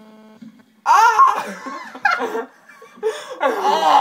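Two teenage boys laughing hard in two loud bursts, the first about a second in and the second about three seconds in. A steady electrical hum stops about half a second in.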